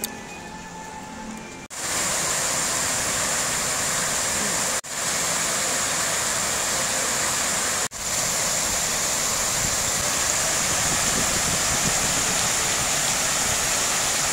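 Fountain jets spraying and splashing into a pool: a steady, loud rush of water. It starts about two seconds in and breaks off for an instant twice where the shots change.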